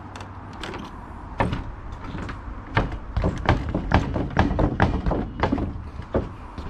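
A series of sharp knocks on timber, a few at first, then coming quickly at about two to three a second from about three seconds in.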